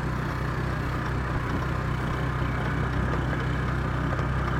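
Vehicle engine running at a steady low drone, heard from inside the moving vehicle, with some road noise.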